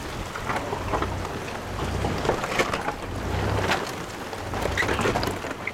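Four-wheel-drive vehicle crawling over a loose rocky track: a low engine and cabin rumble with irregular knocks and crunches of the tyres on stones.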